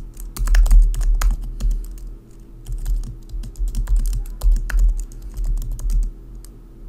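Typing on a computer keyboard: an uneven run of keystroke clicks, each with a dull low thud, easing off near the end.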